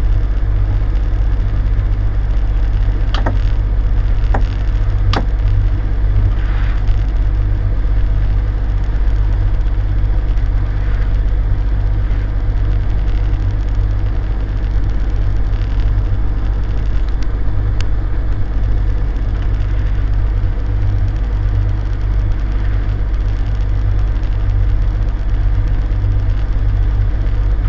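Boat's engine running steadily at low speed, a deep even drone, with a few sharp clicks about three, five and eighteen seconds in.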